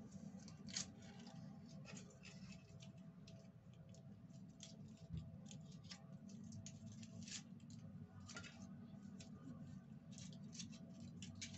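Faint, irregular small clicks and rustles of things being handled, over a low steady hum.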